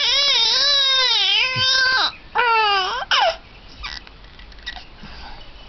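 A baby crying: a high wail of about two seconds, then a second, shorter wail that falls in pitch, and a brief cry just after. The crying stops about three and a half seconds in, leaving only faint sounds.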